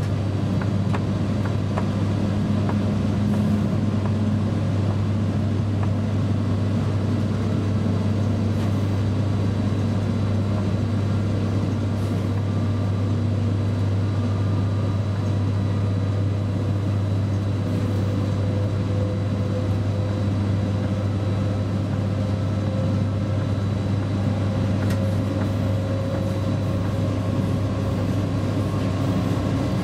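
Steady running noise inside the cab of a Czech class 340 electric locomotive travelling at speed: a deep, even hum with rail and running-gear rumble. A faint whine slowly rises in pitch through the second half.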